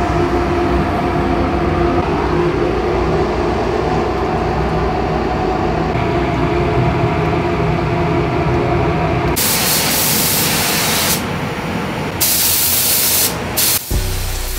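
Steady roar of a paint booth's ventilation, then from about nine seconds in several bursts of hissing air from a gravity-feed paint spray gun as the painter sprays.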